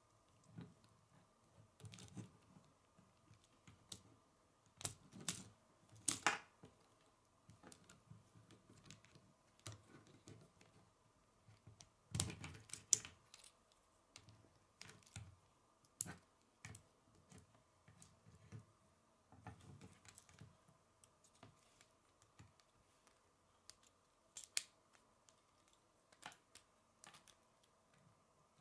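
Plastic K'nex rods and connectors clicking and rattling as they are handled and snapped together, in irregular runs of small clicks with a few louder snaps.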